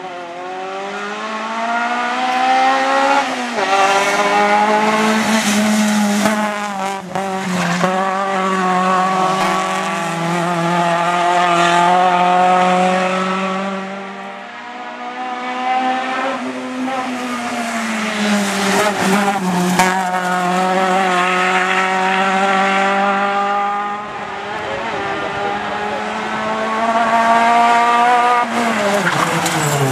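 Suzuki Swift GTi rally car's engine revving hard and driven flat out. The pitch climbs and drops again and again with gear changes and lifts for corners.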